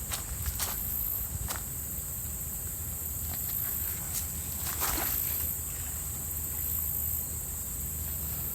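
Irregular footsteps on the ground, a handful of separate steps, over a steady high drone of insects that swells and fades every second or two.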